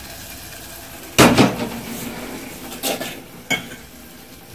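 A metal spoon knocking against a metal cooking pot while stirring a tomato and onion paste. There is one loud clank with a short ring about a second in, then two lighter knocks.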